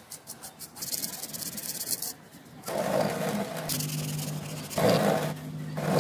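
Hand rubbing a concrete sculpture's cap. A fast rasping scrape comes about a second in, then louder rubbing from about three seconds in, swelling three times.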